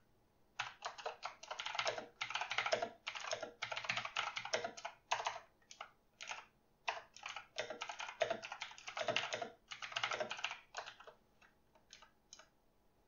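Typing on a computer keyboard: quick runs of keystrokes, with a short break about six seconds in and only a few scattered keys near the end.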